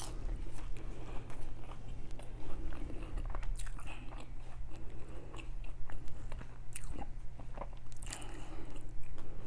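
Close-miked eating and food-handling sounds: irregular crunches, bites and chewing with small crackles, over a steady low hum.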